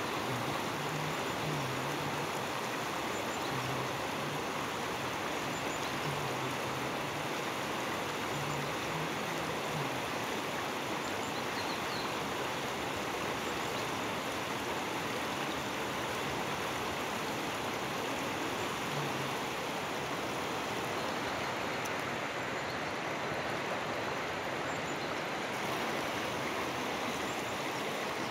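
Fast, shallow river running over rocks: a steady, unbroken rush of flowing water.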